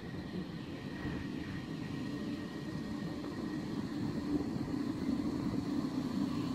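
PKP Intercity EP07 electric locomotive hauling a passenger train into the station, a steady rumble and hum that slowly grows louder as it draws near.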